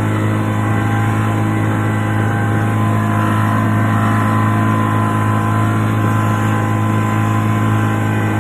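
Boat engine running steadily: a constant low drone that holds one pitch throughout.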